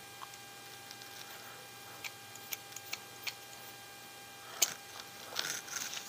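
Faint scattered clicks and taps of small plastic RC axle parts and a hand hex driver being handled, over a steady faint electrical hum. The sharpest click comes about four and a half seconds in, followed by a short cluster of clicks near the end.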